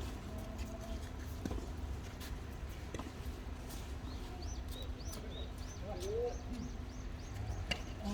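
Outdoor ambience: a steady low rumble and hum, with a few scattered light knocks and a short run of faint bird chirps about halfway through.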